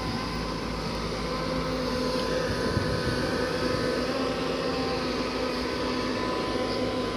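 Hyundai crawler excavator's diesel engine running steadily as it digs, a continuous drone with several held tones.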